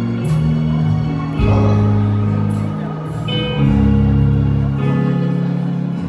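Live church band music: held bass notes that change every second or so, with a few sharp percussion hits over them.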